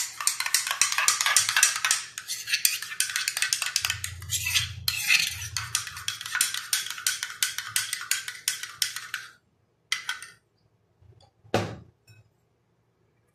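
Spoon whisking yogurt and cumin powder in a cup: a fast run of clicks and scrapes against the sides that stops about nine seconds in, followed by two short knocks.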